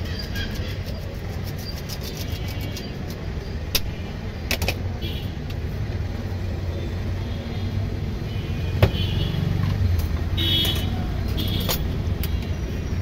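Steady low rumble of street traffic, with a few sharp clinks of metal spoons and utensils against bowls, the loudest about nine seconds in.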